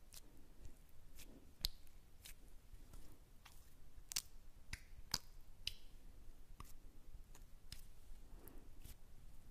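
Close-miked ASMR 'invisible trigger' sounds: soft, sharp clicks and snaps at an irregular pace of one or two a second, with faint squishy sounds between, made without props to imitate other sounds.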